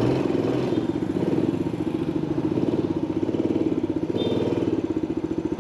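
Motorcycle engine running steadily with a rapid, even pulse.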